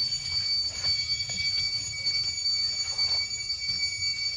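Insects droning in a steady, high-pitched whine held at one pitch, over a low rumble, with a few faint clicks and rustles.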